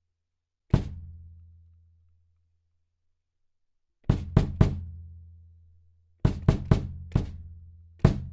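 Tom drums on a drum kit being struck: one hit about a second in, a quick run of three around four seconds, four more between six and seven seconds, and one near the end. Each hit rings on with a low, pitched tone that fades over a second or two.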